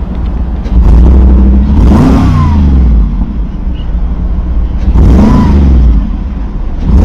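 McLaren 570S Coupe's 3.8-litre twin-turbo V8 idling, revved twice, about two and five seconds in, the pitch rising and falling back each time.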